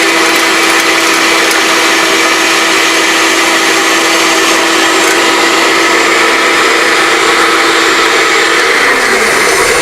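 Bandsaw running while it cuts the curved profile of a tapered wooden table leg. A steady hum and dense noise; near the end the hum drops in pitch as the saw is switched off and spins down.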